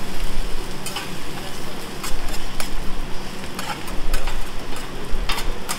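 Fried rice sizzling on a hibachi steel griddle while metal spatulas scrape, chop and tap against the plate, with a few sharper clacks near the end.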